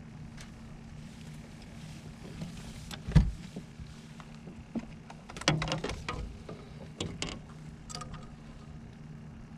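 A boat's motor gives a steady low hum throughout. Knocks and clatter of gear on the hull sound over it: one sharp, loud knock about three seconds in and a run of smaller clunks between about five and eight seconds.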